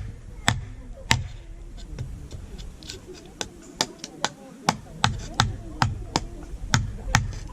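Repeated sharp knocks of wood being struck, about two or three a second, with a gap of about a second and a half a little before the middle.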